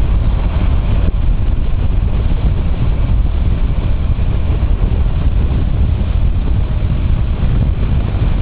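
Motorcycle riding along at road speed, heard as a steady low rumble of wind buffeting the microphone, with engine and road noise underneath.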